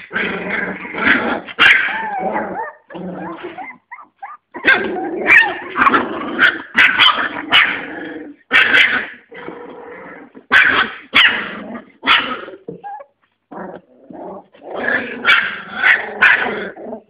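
A litter of 25-day-old American Staffordshire terrier puppies growling and yipping as they tussle together. The calls come in irregular bursts with short pauses.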